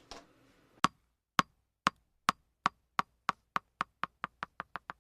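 A series of sharp knocks that come ever faster and fainter, in the pattern of a small hard ball bouncing to rest.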